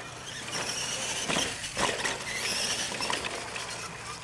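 R/C monster truck's electric motor and gears whining, the pitch rising and falling with the throttle, with two sharp knocks about a second and a half in.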